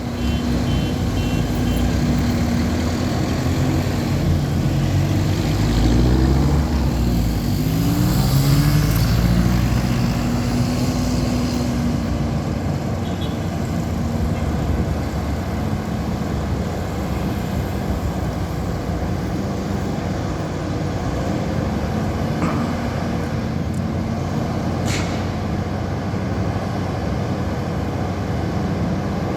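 Diesel truck engine running in street traffic, its revs rising in a few steps between about six and ten seconds in as it pulls away. A short hiss comes near the end.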